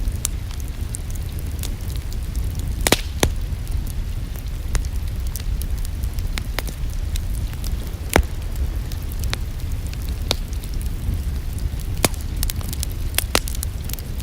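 Wood fire in a fireplace crackling, with scattered sharp pops and snaps over a steady low rumble of the flames; the pops come closer together near the end.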